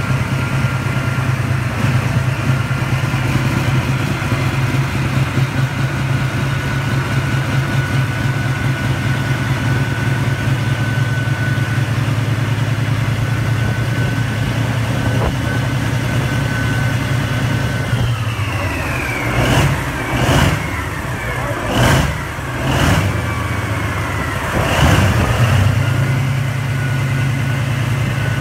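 A Mitsubishi S16R 16-cylinder V diesel engine running with a steady low drone and a high whine over it. After a long steady stretch, the whine falls in pitch and five loud surges come over several seconds, then the steady run and whine return near the end.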